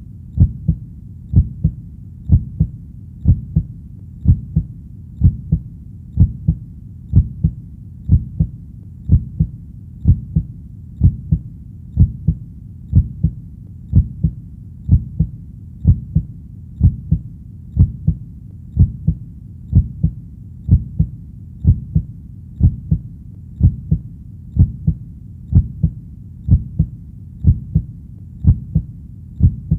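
A heart beating steadily, about once a second, each beat a low thump, often doubled.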